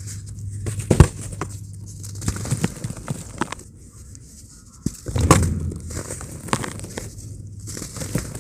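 Lumps of pure cement being dipped in water and crumbled by hand, crunching and crackling as pieces break off and patter into dry cement powder. Two louder impacts stand out, one about a second in and one about five seconds in.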